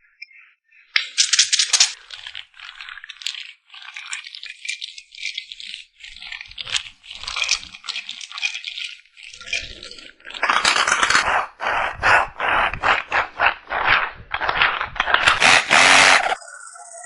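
Rattling and scraping handling noise: quick, irregular clatters that grow dense and loud in the last several seconds, then stop suddenly.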